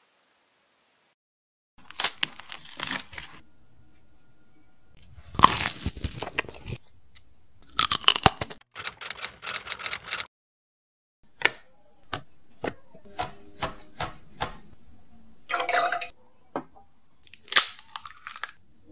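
Close-up food handling sounds: several bursts of crunching and crackling, then a run of short sharp clicks and taps.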